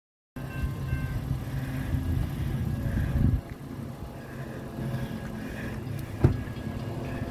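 A diesel or motor engine running with a steady low rumble, louder for the first three seconds and then quieter, with one sharp knock about six seconds in.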